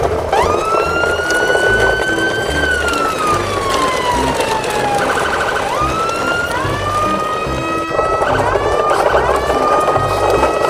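A siren-like whistling tone that swoops up, holds, slides slowly down, then swoops up again several times, over background music with a pulsing beat.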